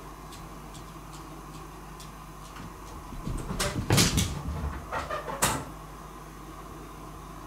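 A cat moving about: a flurry of knocks and scuffs lasting about three seconds, loudest in the middle and ending in one sharp knock.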